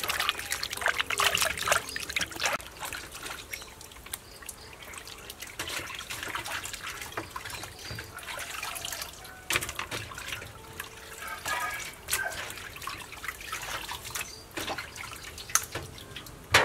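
Hands washing raw duck pieces in a steel basin of water: sloshing, swishing and trickling water, busiest in the first few seconds, with one sharper splash at the very end.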